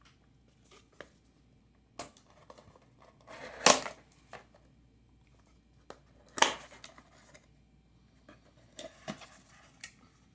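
Cardboard mailer box being torn open by hand: two loud rips about three seconds apart, with scattered taps, scrapes and rustles of the cardboard being handled and the flaps pulled open.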